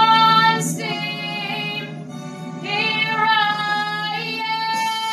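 A young female voice belting long held notes with vibrato over a sustained backing accompaniment, with a brief dip about two seconds in before the next long note.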